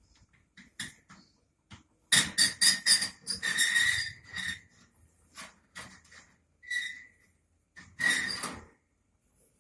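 A young owl giving loud, shrill, rasping calls in bursts: a long run of calls, a short one, then another run near the end, with a few faint clicks before them.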